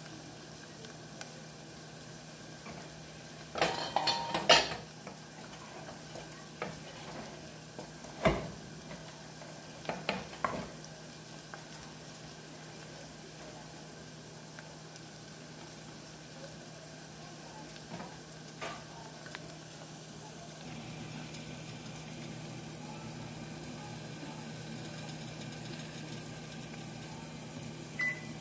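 Sliced peppers and tomatoes sizzling in an aluminium pot, with a cooking spoon scraping and knocking against the pot a few times, loudest in a quick cluster about four seconds in. The sizzle grows brighter in the second half.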